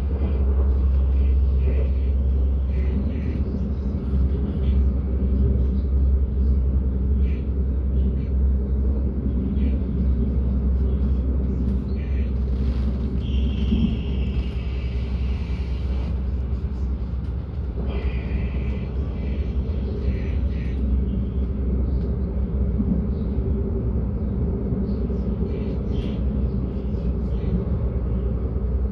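Regional passenger train running on the rails, heard from on board: a steady low rumble with scattered clicks from the wheels over rail joints and points. About halfway through come two high metallic squeals, each a couple of seconds long.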